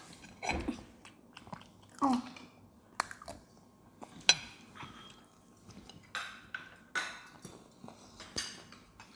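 Children chewing and biting into fried battered food, with short sharp clicks of a metal spoon against a plate and bowl, the loudest about four seconds in.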